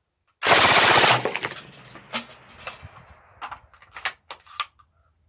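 Suppressed full-auto burst from a Lage MAX-11/15 AR-type rifle with a Tactical Innovations TAC16 suppressor, firing 5.56 mm at about 900 rounds a minute. One short burst of roughly a dozen rounds lasts under a second and is followed by a few scattered clicks and knocks.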